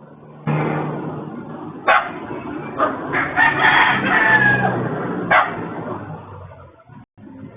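Rooster crowing, heard through a CCTV camera's narrow-band microphone, with two sharp knocks along the way.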